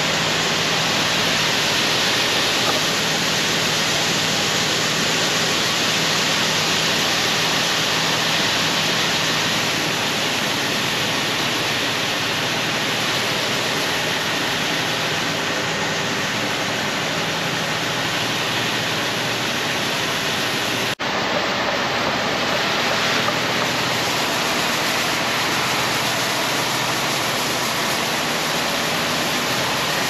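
Shelled corn pouring from a Brent 882 grain cart's auger spout into a semi trailer, a steady rushing hiss over a faint low hum of the auger drive. The sound breaks off for an instant about two-thirds through, then carries on the same.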